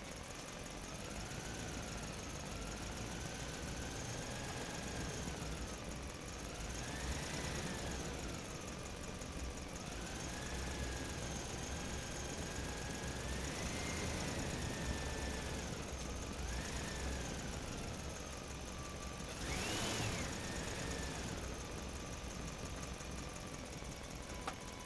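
A truck driving through a parking structure: its engine runs with a low rumble under a whine that rises and falls several times as it speeds up and slows, climbing highest about twenty seconds in.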